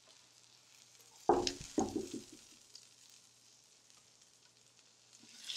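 Pork chops sizzling in a hot skillet of oil and butter while tongs move them into a baking dish; a little over a second in come two knocks about half a second apart as a chop is handled and set down. The sizzle grows louder near the end.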